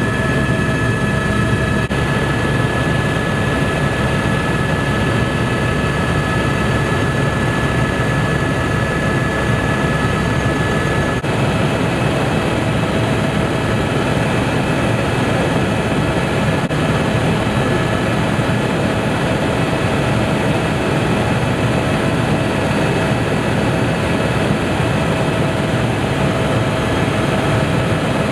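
Helicopter in flight heard from on board: a dense, steady rumble of rotor and engine with a steady high turbine whine over it.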